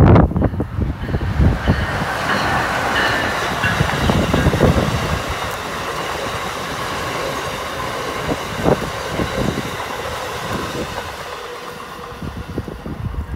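Amtrak Northeast Regional train, an ACS-64 electric locomotive hauling Amfleet coaches, passing close by at speed: steel wheels running on the rails, fading near the end as the train moves away.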